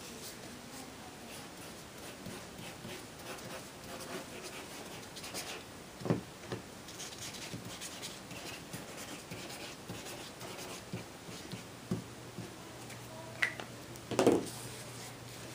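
Tip of a Zig glue pen scratching and rubbing across the back of a cardstock die cut, with light paper handling and a few soft taps. A louder thump comes near the end.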